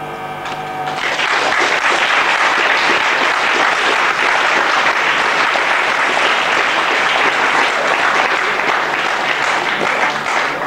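The last note of a live band's song dies away, and about a second in an audience breaks into steady clapping.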